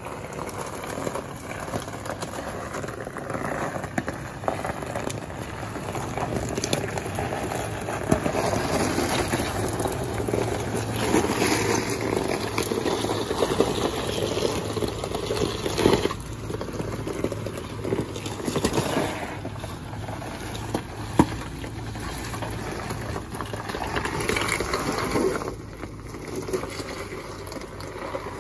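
Lexus GX SUV crawling slowly up a rocky hill: tyres crunching and grinding over loose rock and gravel, with a continuous crackle, scattered stone clicks and an occasional sharp knock of a rock, and the engine running low underneath.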